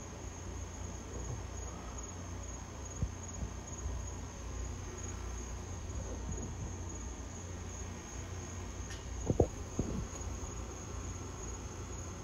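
Crickets chirping in a steady high, finely pulsing trill over a low rumble. A short knock comes about three seconds in, and a louder pair of knocks comes about nine and a half seconds in.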